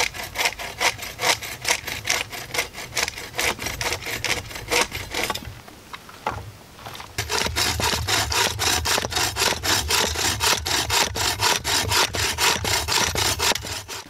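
Folding bow saw cutting through a dry driftwood branch, back-and-forth in quick, regular strokes, with a break of about a second and a half in the middle.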